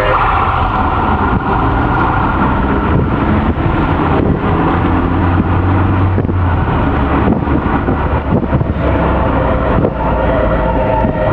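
Fire engine's motor running loud and close, with a deep drone that swells about five seconds in.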